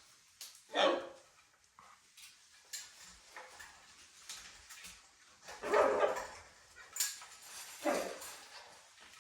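Macaws squawking: a short call about a second in, a longer one past the middle and another near the end, with fainter chirps between.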